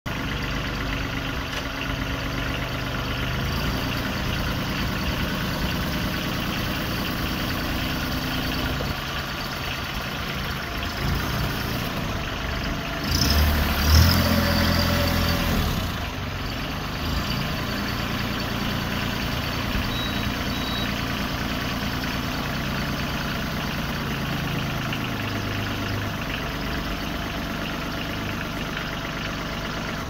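Branson compact tractor's diesel engine running as the tractor is manoeuvred, its pitch shifting up and down with the revs. It is briefly louder about halfway through.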